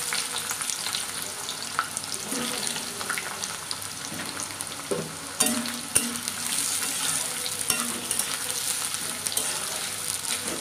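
Freshly added sliced onions sizzling and crackling in hot oil in a kadhai, being stirred with a spatula, with a couple of sharp clicks from the stirring about halfway through.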